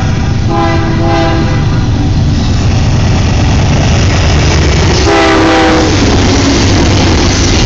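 Diesel locomotives of a Canadian National freight train passing close, their engines under heavy load pulling up a grade with a loud, steady low rumble. The locomotive's multi-tone horn sounds briefly about half a second in and again about five seconds in.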